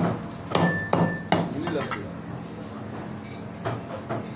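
Heavy meat cleaver chopping goat meat on a wooden chopping block: four hard chops in quick succession in the first second and a half, then a few lighter strikes.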